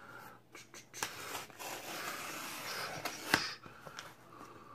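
Small cutter blade slitting along the edge of a cardboard record mailer: a rough scraping for about two seconds, then a sharp click a little past the middle.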